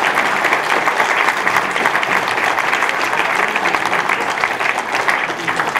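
Audience applauding steadily at the end of a song, a dense patter of many hands clapping.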